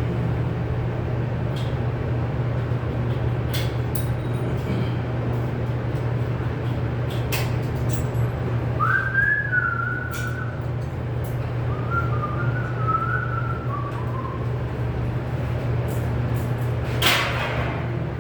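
A person whistling two short snatches of a tune over a steady low machine hum, with scattered light clicks and knocks of work. There is a brief hiss near the end.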